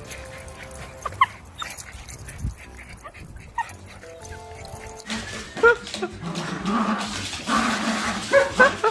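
A dog whimpering and giving short yips, over light background music.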